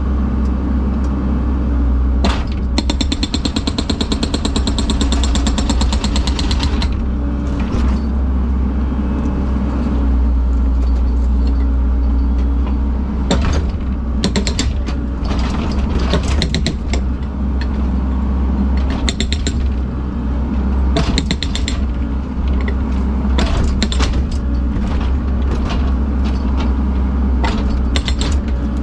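Heavy machine engine running steadily, with bursts of rapid mechanical clattering over it and scattered sharp knocks.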